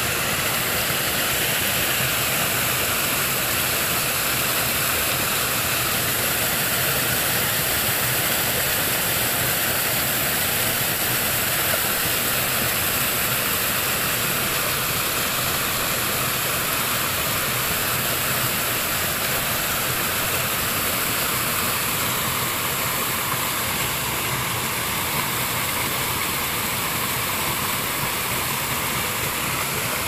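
Small waterfall pouring over rocks close by: a steady rushing of water with no break.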